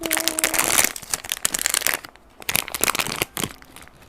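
Plastic wrapper crinkling and tearing as a blind-box figurine is unwrapped by hand: dense crackling for the first two seconds, then lighter, scattered rustles.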